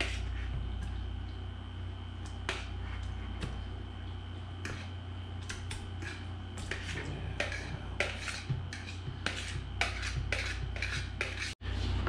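Chopped guacamole ingredients being tipped and scraped from a bowl into a glass blender jar: a scattered string of light clicks and knocks, busier in the second half, over a steady low hum.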